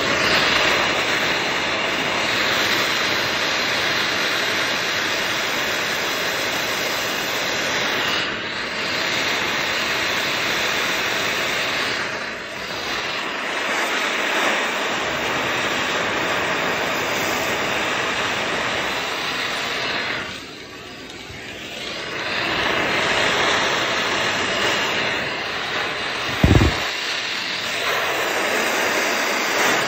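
Handheld gas torch flame hissing steadily as it heats a copper pipe joint for soldering, dipping briefly a few times. A short low thump sounds near the end.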